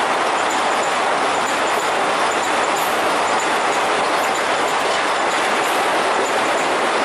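Passenger train coaches rolling past at speed: a steady, loud rush of wheels on rails.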